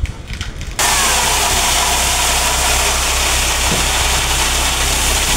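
Dump truck unloading gravel: the engine runs steadily to raise the bed, and the gravel pours out of the tipped bed as a loud, steady rushing that starts suddenly about a second in.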